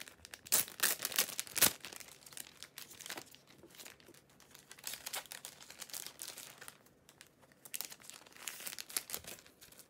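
Glossy paper posters being shuffled and handled, crinkling and rustling against a clear plastic sleeve. The loudest crinkles come in the first two seconds, with quieter rustling after and another short spell of crinkling near the end.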